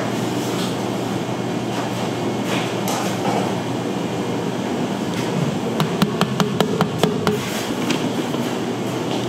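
Steady mechanical hum of working machinery, with a quick run of about eight sharp clicks or taps about six to seven seconds in.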